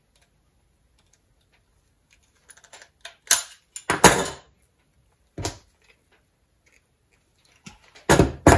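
A utility knife scraping and cutting the insulation off the end of a thin red wire against a wooden worktop: a few short, sharp scrapes and clicks after a quiet couple of seconds, then two louder clatters near the end.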